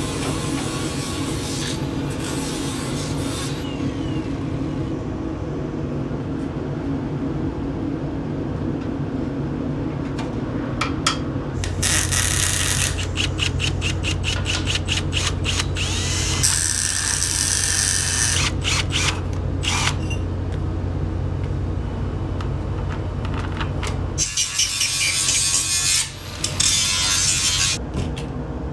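Cordless drill running in repeated short bursts, with clicks and clatter from tool work on the truck's body.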